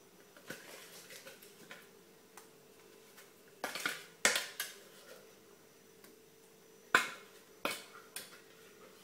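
A kitchen utensil scraping and knocking against a bowl as thick sponge-pudding batter is spooned into a dish: a few sharp clinks and scrapes, the loudest about four and seven seconds in, between softer ticks.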